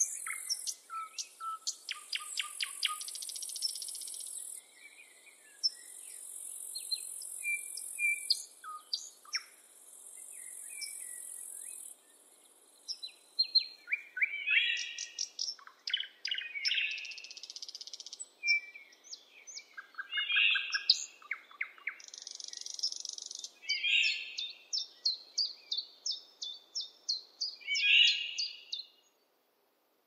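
Several songbirds singing and calling at once: short chirps, trills and quick runs of repeated notes. The birds grow louder in the second half, with the loudest phrase near the end. Over the first half a high insect buzz comes in several stretches lasting a few seconds each, starting and stopping.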